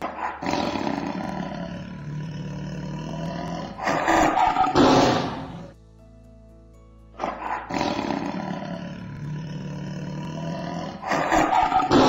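Tiger roaring twice, the same roar heard both times. Each roar runs about five seconds and grows louder toward its end, with a pause of about a second and a half between them.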